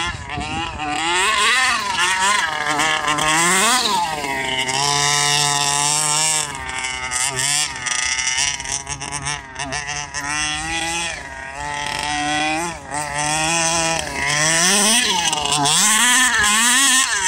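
HPI Baja 5B RC buggy's two-stroke petrol engine revving up and down as it is driven, its pitch climbing and dropping again and again with a few steadier stretches in between.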